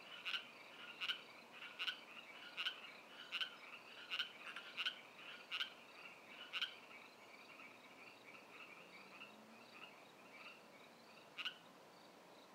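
Frogs calling at the water's edge. One nearby frog repeats its call steadily, about one call every three quarters of a second, for the first half. Then it goes quiet, leaving a softer chorus of other frogs, and it gives one more loud call near the end.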